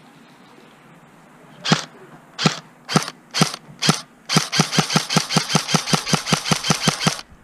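Airsoft rifle firing: five single shots about half a second apart, then a long full-auto burst of about eight or nine shots a second lasting some three seconds.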